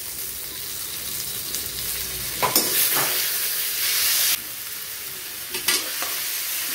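Grated raw mango sizzling in hot oil in a metal kadai, stirred with a metal ladle that scrapes against the pan a few times.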